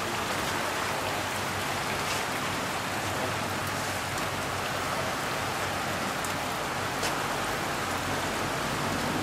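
Heavy rain pouring down steadily, a dense even hiss of rain falling on a swimming pool and the wet paving around it, with a few sharper drip ticks.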